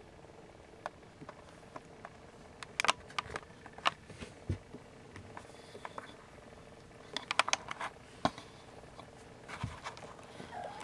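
Siamese kittens nursing and shuffling against their mother cat: scattered small clicks, suckling smacks and fur-and-blanket rustles, busiest about three seconds in and again around seven seconds.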